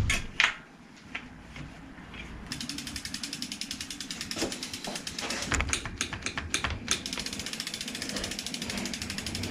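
Bicycle rear hub freewheel ratcheting as the rear wheel spins in a repair stand: a fast, even ticking that starts about two and a half seconds in. A few louder clicks and knocks from handling the bike come at the start and in the middle.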